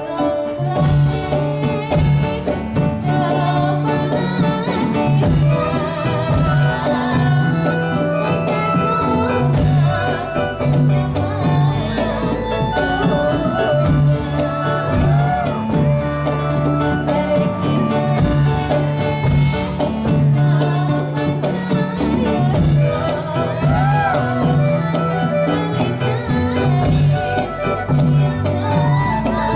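Dolalak dance accompaniment playing continuously: a steady repeating percussion rhythm under pitched instruments, with a voice singing over it.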